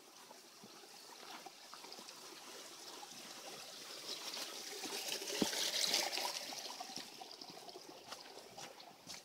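A small stream trickling, growing louder to a peak about six seconds in and then fading, with a few light footsteps on the dirt trail.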